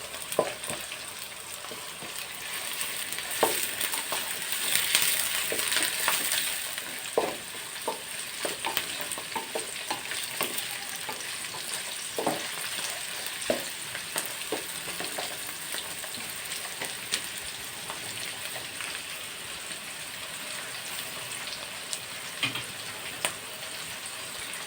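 Sliced onions and green chillies sizzling in hot oil in a kadai on high flame, stirred, with frequent short taps and scrapes of the stirring utensil against the pan. The onions are being sautéed only until translucent.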